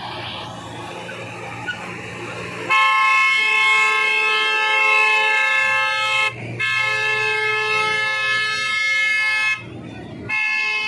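Horn of a small park mini train sounding in three long steady blasts with short breaks between. The first starts about three seconds in, after a low steady hum.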